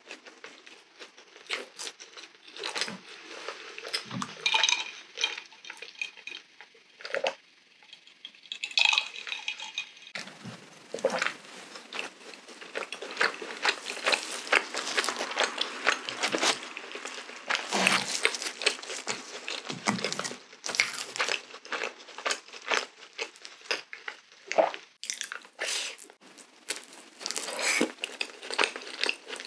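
Close-miked eating of a glazed donut: chewing with soft wet mouth sounds and many small clicks and crackles.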